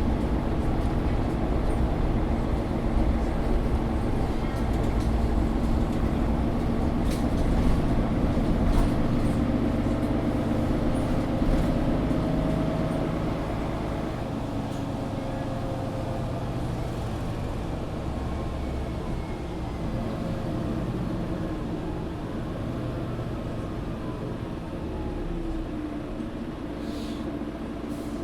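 Mercedes-Benz O530 Citaro G articulated bus driving, heard from inside: a steady low engine and road rumble with a whine that climbs in pitch and then falls away. The sound gets quieter about halfway through, and there are a few light clicks and rattles.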